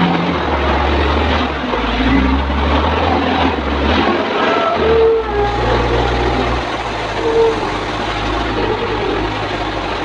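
Komatsu WA350 wheel loader's diesel engine working under load, its note rising and falling several times as it lifts and tips a bucket of gravel into a dump truck bed.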